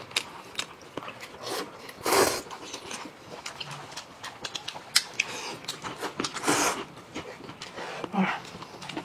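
Close-up eating sounds: a person biting and chewing with wet clicks and lip-smacking, and a few louder noisy breaths or slurps about two and six and a half seconds in.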